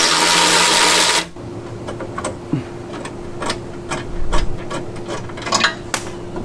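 A handheld power tool's motor whirring hard as it spins a rock-guard bolt loose, rising slightly in pitch, then cutting off about a second in. Light clicks and knocks of metal and plastic follow as the bolt and guard are handled.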